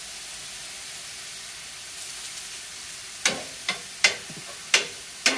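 Ground seasoned chicken breast sizzling steadily on a flat-top griddle over a propane turkey-fryer burner. A metal spatula clacks against the griddle five times in the last two seconds as the meat is stirred and chopped.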